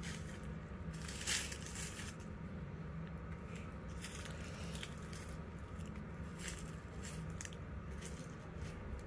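Sneakers stepping on dry fallen leaves: scattered crunches and crackles, the loudest about a second in, over a steady low hum.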